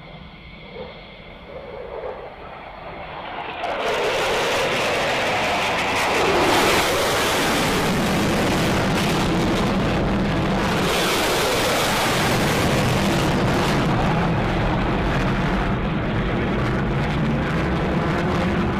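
F-16 fighter jet's engine roar during a flyby: faint at first, then rising sharply to a loud, steady jet roar about four seconds in, which holds with slowly sweeping tone colour as the aircraft passes.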